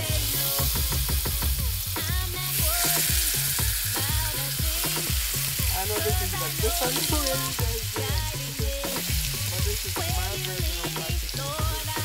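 Seasoned chicken leg quarters sizzling in hot olive oil in a nonstick pan as the pieces are laid in one after another with metal tongs. Background music with a steady beat plays underneath.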